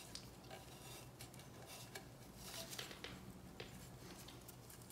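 Faint handling noises of gloved fingers pressing and working a rubber O-ring into the groove at the throttle-body end of a charge pipe: scattered small clicks and scuffs.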